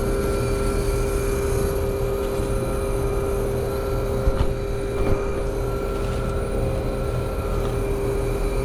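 A 20-year-old Trane two-stage R22 air conditioner condensing unit running steadily, its compressor humming with the condenser fan: the second compressor stage has started and is running. Two small ticks come about a second apart near the middle.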